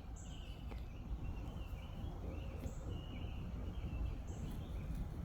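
Small birds chirping repeatedly over a steady low rumble, with a few brief high-pitched peeps.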